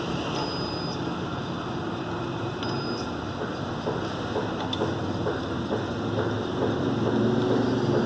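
Two short high-pitched beeps from a multimeter's continuity tester, about two seconds apart, as the probes meet the water heater's lower thermostat terminals: the thermostat shows continuity. A steady mechanical hum runs underneath.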